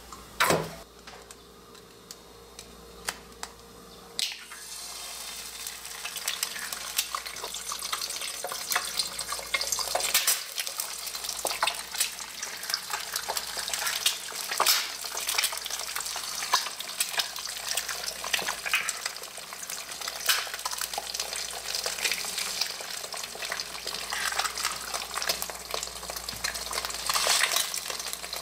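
Eggs frying in hot oil in a non-stick frying pan: a crackling sizzle that sets in about four seconds in and keeps going, with occasional sharp clicks and taps. A single sharp knock comes about half a second in.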